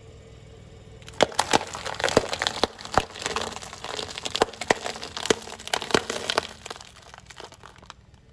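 Sealed plastic snack cups filled with biscuit sticks being crushed under a car tyre: a run of sharp cracks and crunching plastic starting about a second in, dying away after about six and a half seconds.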